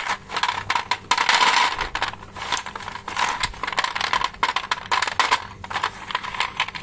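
Sticks of coloured chalk clicking and clattering against one another and the tray as a hand pushes, scoops and drops them, with a denser stretch of clatter about a second in.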